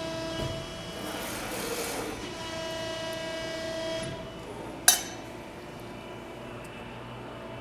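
Cincinnati 230 CBII hydraulic press brake cycling: the hydraulic pump whines steadily, with a rush of hiss about a second in, and the whine drops about four seconds in. A single sharp clack near the five-second mark is the loudest sound.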